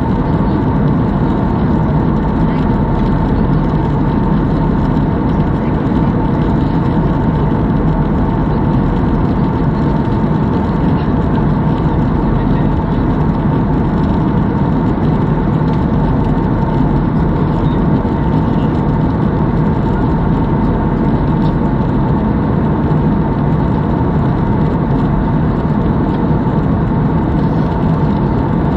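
Steady airliner cabin noise heard from a window seat: the even rush of the jet engines and the airflow over the fuselage, with a thin steady tone running through it.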